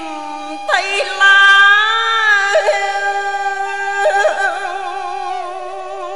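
Female voice chanting Vietnamese poetry in the ngâm thơ style: long held notes that waver and glide slowly between pitches, over traditional Vietnamese instrumental accompaniment.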